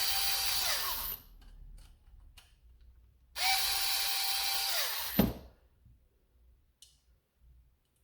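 Small electric screwdriver backing screws out, in two runs of about a second and a half each. The motor whine drops in pitch as each run stops, and a knock follows the end of the second run.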